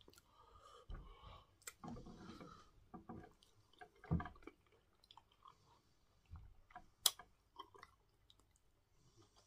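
A person chewing and eating soft cocoyam fufu with soup by hand, with scattered wet mouth clicks and one sharp click about seven seconds in.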